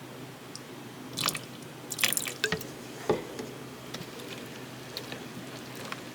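Homemade slime being mixed or squished by hand: a few short wet clicks and squelches, the loudest coming about one to three seconds in and fainter ones after, over a faint steady hum.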